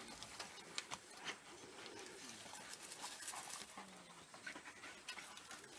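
African wild dogs feeding on an impala carcass: faint chewing and tearing, heard as scattered sharp clicks, with a few soft short dog sounds.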